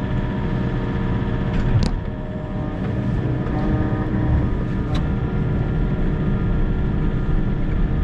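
Volvo EC60E mini excavator's diesel engine running steadily, heard from inside the cab as a low rumble with a steady hum of tones. There are two sharp clicks, about two seconds in and about five seconds in.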